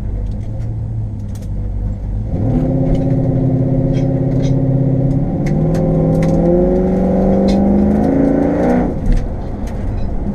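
1972 Chevelle's engine heard from inside the cabin. About two seconds in it comes onto full throttle, its pitch climbing steadily through the middle, then it cuts off abruptly near the end as the throttle is lifted. Light ticks and rattles run throughout.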